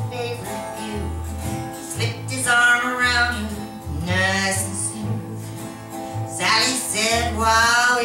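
A woman singing with her strummed acoustic guitar, and an upright double bass plucking steady low notes underneath. The singing comes in phrases between short guitar-and-bass gaps.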